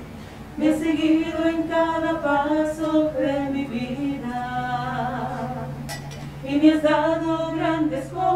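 Small group of women singing a Spanish hymn in held, sustained phrases into a microphone, during communion at Mass. A steady low note sounds beneath the voices from about three seconds in.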